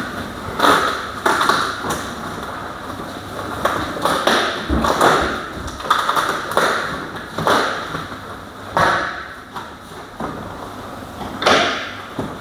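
Irregular knocks, thumps and rustles of packaging and an appliance being handled during unboxing.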